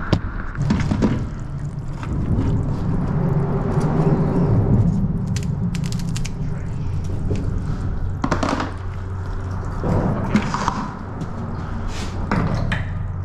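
Boat motor running steadily, a constant low rumble, with a few knocks and thumps about eight, ten and twelve seconds in.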